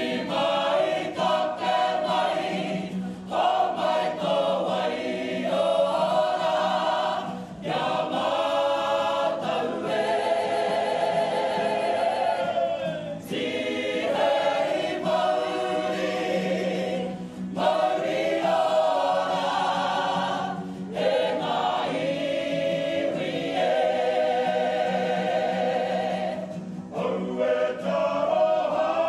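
Māori kapa haka group of women and men singing together as a choir, in phrases of a few seconds with brief breaks between them.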